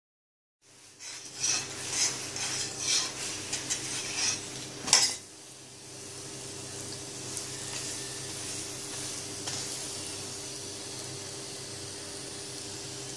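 A metal spoon scraping and pressing a paratha on an iron tawa in a quick run of strokes, with a sharper scrape about five seconds in. After that the paratha sizzles steadily on the hot griddle as it fries.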